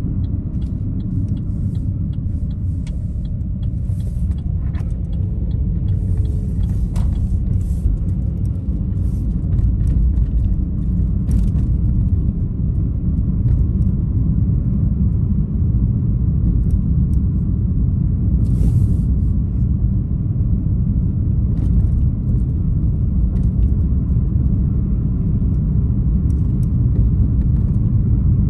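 Steady low rumble of a car driving along: engine and road noise from the moving vehicle.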